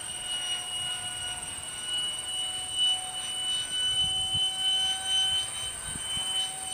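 Electric ducted fan of a radio-controlled F-4 Phantom model jet, a steady high whine holding one pitch as the model flies overhead.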